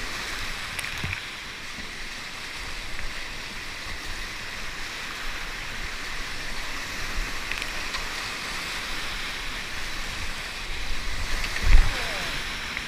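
Whitewater of a river rapid rushing steadily, with a single low thump near the end.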